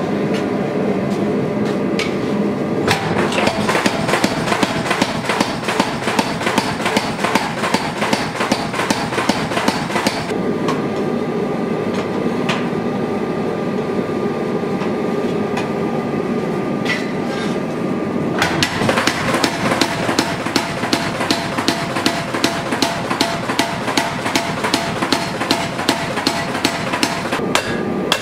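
Hand hammer rapidly striking a hot sword blade on a steel anvil, in two runs of several seconds each, many blows a second. In the gaps, the forge's steady running noise carries on while the blade reheats.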